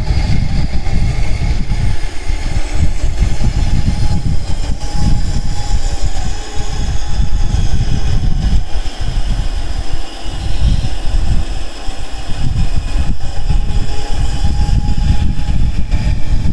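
MAF Pro benchtop band saw running and cutting a curve through a block of wood about 1.5 inches thick: a steady machine hum with the blade's cutting noise, its level wavering as the wood is fed and turned.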